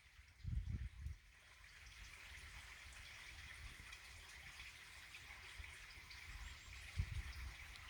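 Faint, steady rush of running water from a stream, with low gusts of wind buffeting the microphone about half a second in and again near the end.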